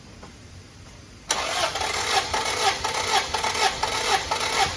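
Starter cranking a Honda B20 engine that does not fire, beginning suddenly about a second in, with an even pulse about twice a second. This is a compression test, and the cylinder under test reads about 135 psi on the gauge.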